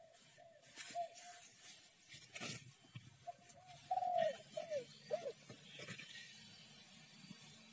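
A dove cooing in short, repeated phrases, with a brief knock about two and a half seconds in.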